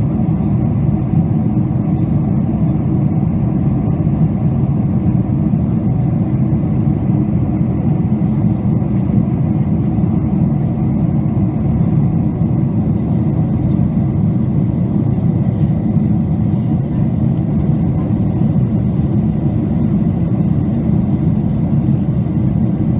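Airliner cabin noise in cruise flight: a steady, even low rumble of jet engines and rushing airflow heard from inside the cabin.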